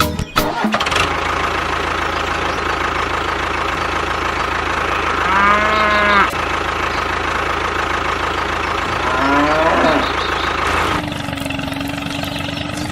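An engine running steadily, with a cow mooing twice, once about five seconds in and again about nine seconds in. Near the end the running noise gives way to a steady hum.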